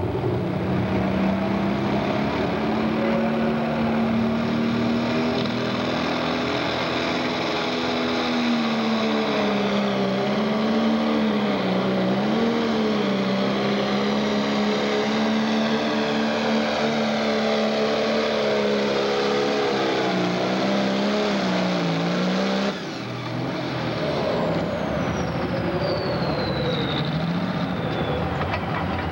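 Turbocharged diesel engine of a John Deere super stock pulling tractor running flat out under load while dragging a weight-transfer sled, its note wavering up and down. About 23 seconds in the throttle is cut and the sound drops suddenly, followed by a high whine falling in pitch as the turbo spools down.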